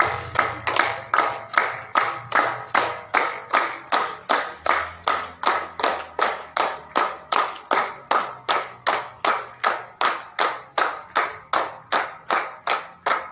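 Audience clapping together in time, a steady rhythm of about three claps a second that keeps up throughout.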